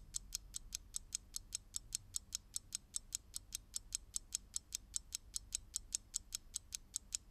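Fast, even ticking of a clock sound effect, about five ticks a second, counting down thinking time.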